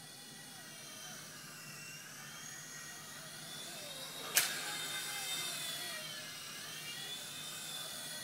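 Small electric motors and rotors of a WLtoys V911 Pro micro RC helicopter whining in flight, the pitch rising and falling as the throttle changes. A single sharp tap about four seconds in.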